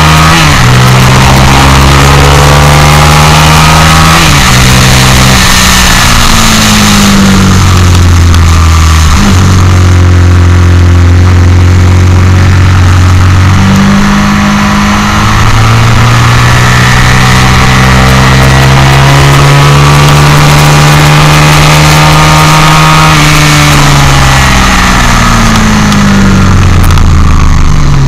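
Onboard sound of a motorcycle at speed on a race track: the engine climbs in revs and drops sharply at each upshift, holds steady at high revs, then falls away near the end as it slows, over a loud rush of wind.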